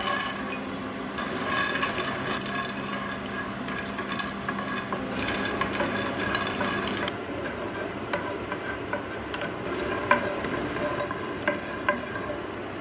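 Cashew nuts stir-fried in a little oil in a nonstick frying pan: a steady frying hiss with many small clicks and scrapes as a wooden spatula pushes the nuts around.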